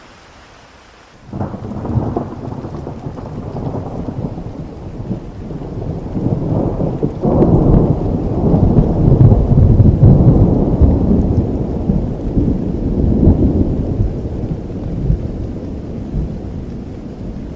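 A long thunder roll over steady rain: it breaks suddenly about a second in, rumbles louder for several seconds to a peak around the middle, then slowly eases off while rain keeps falling.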